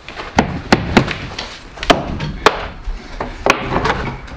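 Kicks landing on a drywall (sheetrock) wall: about half a dozen sharp thuds and whacks, irregularly spaced.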